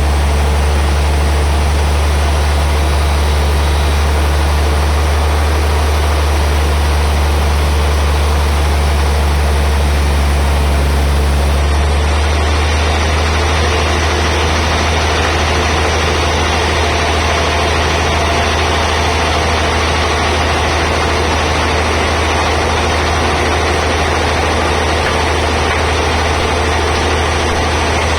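Sawmill band saw machinery running with a steady, heavy low hum. The sound shifts about twelve seconds in.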